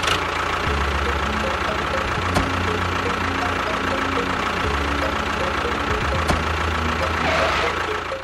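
A motor running steadily with a dense mechanical rattle, starting and stopping abruptly.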